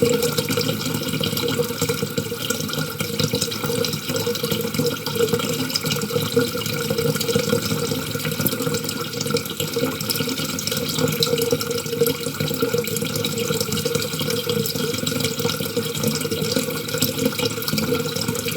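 Water running steadily from a tap into a sink, an even splashing rush that does not change.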